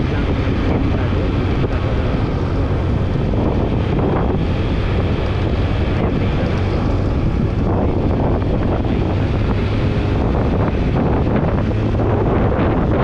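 Wind buffeting the microphone over a steady low hum.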